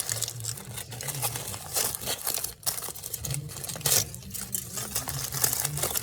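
Aluminium foil crinkling and rustling in a run of irregular sharp crackles as it is wrapped and folded around a sandwich.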